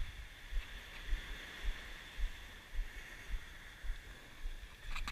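Walking footsteps on a pebble beach, heard as low thumps about two a second, over a steady hiss of wind and surf.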